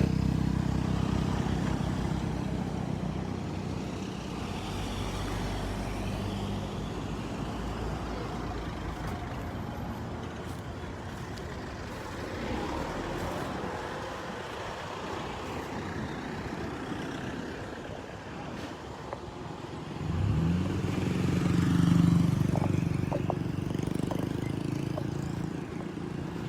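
Motor vehicles on a road with steady outdoor background noise. One engine fades away over the first several seconds, and another approaches about twenty seconds in, loudest around twenty-two seconds, then recedes.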